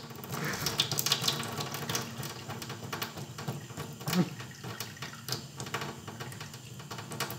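Thin stream of water running from a kitchen faucet into a stainless steel sink, with quick small clicks as a cat laps at the stream.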